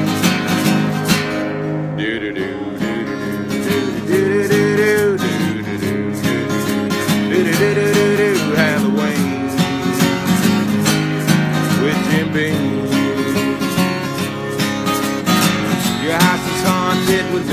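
Acoustic guitar strummed in a steady country rhythm through an instrumental break in a song, with a wavering melody line over the chords.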